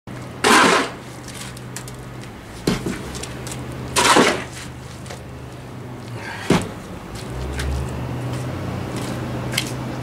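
Shovel scraping up muck by hand: two long scrapes, about half a second and four seconds in, and two sharp knocks, over a steady low hum.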